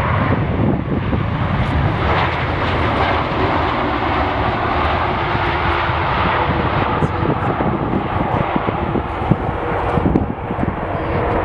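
Airliner engines running, a steady roar, with gusty wind rumbling on the microphone.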